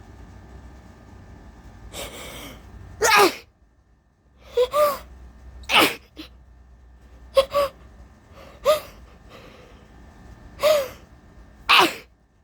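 A woman gasping in a series of breathy, catching inhales as she builds up to sneeze. She lets out three forceful sneezes, about three seconds in, about six seconds in and near the end. The sneezing comes from allergies.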